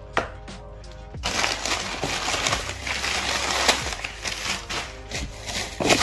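Background music, then from about a second in, loud rustling and crinkling of cardboard and plastic packing wrap as a shipping box is unpacked by hand.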